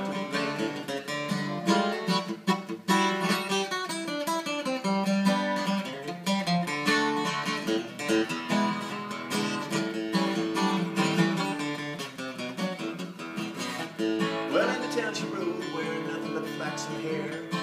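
Steel-string dreadnought acoustic guitar strummed in an upbeat instrumental break between verses. A man's singing voice comes back in near the end.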